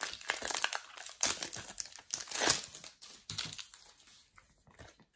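Plastic wrapper of a Mega Match Attax trading-card packet crinkling and tearing as it is pulled open, loudest in the first three seconds; then quieter rustles and light clicks as the cards are handled.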